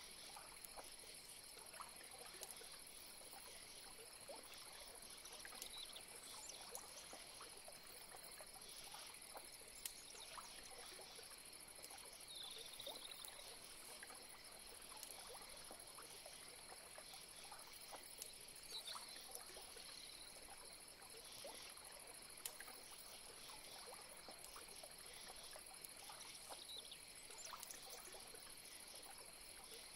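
Faint swamp ambience: a steady high-pitched insect chorus, with scattered faint ticks and a few short high chirps.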